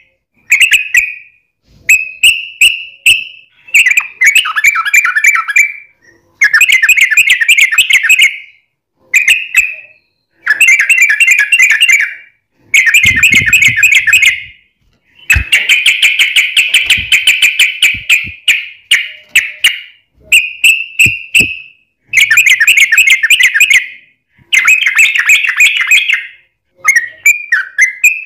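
Yellow-vented bulbul (trucukan) singing loud phrases of very rapid, chattering repeated notes, each burst lasting one to three seconds with short pauses between them.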